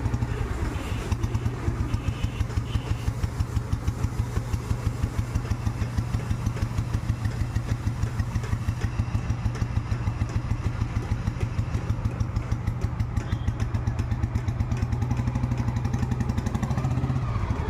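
Restored 1991 Royal Enfield Bullet's single-cylinder engine running steadily with a fast, even exhaust beat.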